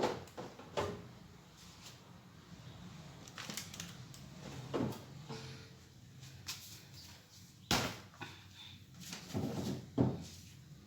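Scattered knocks, clicks and light clatter of items being handled and set down while a fridge is cleaned out, with a sharp knock about three quarters of the way through.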